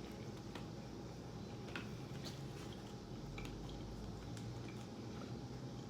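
Faint eating sounds: scattered small mouth clicks and soft wet chewing over a low steady background hum.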